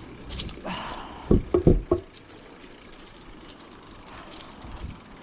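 Bicycle rolling over paving slabs: a quick cluster of four sharp knocks and rattles about a second and a half in, then a steady low rolling noise.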